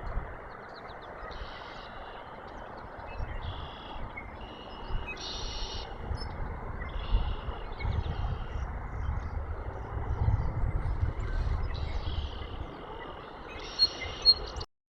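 A chorus of chorus frogs, many short pulsed trills overlapping and repeating every second or two, over a low, uneven rumble. The sound cuts off suddenly near the end.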